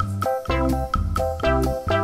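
Background music with a steady, bouncy beat: short pitched notes over a bass line, about four notes a second.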